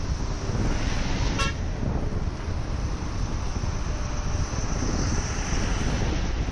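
Steady road traffic noise, with one short vehicle horn toot about a second and a half in.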